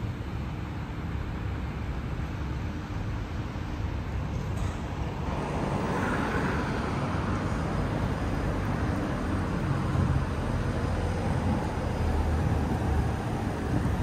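Road traffic running steadily, growing louder about five seconds in as vehicles pass close by.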